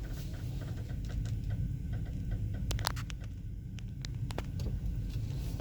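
An unexplained creaking noise: irregular short creaks and clicks, a few sharper ones about three and four and a half seconds in, over a steady low rumble.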